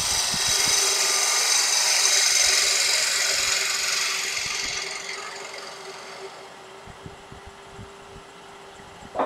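A gouge cutting across the end-grain face of a walnut blank spinning on a wood lathe: a loud, steady hissing shear for about five seconds that fades away as the cut ends. Under it the lathe runs with a steady hum, and there is a single knock near the end.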